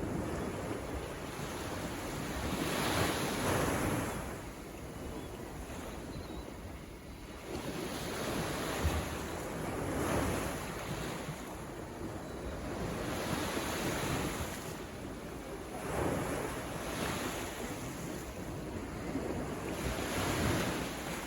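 Ocean waves breaking and washing in, a new surge about every three to four seconds over a constant low rumble of surf.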